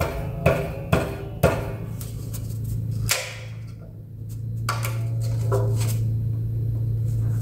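Sharp wooden knocks and clicks as two stacked wooden inlay pieces are pried apart: four quick knocks in the first second and a half, a louder one about three seconds in, and a few lighter clicks later, over a steady low hum.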